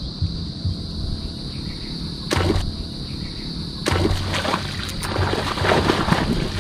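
A popper lure splashing on the surface of a pond as it is twitched, then, about four seconds in, a fish, a barracuda, strikes it with a loud splash and thrashes at the surface. A steady high insect buzz carries on underneath.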